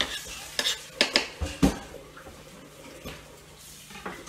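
A kitchen knife scraping and tapping chopped food off a plastic cutting board into a stainless steel pot: half a dozen sharp clinks and knocks of metal on the pot and board in the first two seconds, then quiet.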